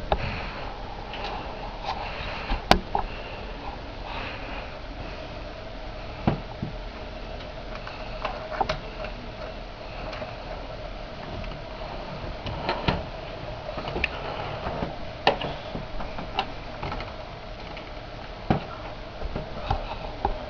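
Model train running on the layout: a steady electric motor hum with irregular clicks and ticks from the wheels and track.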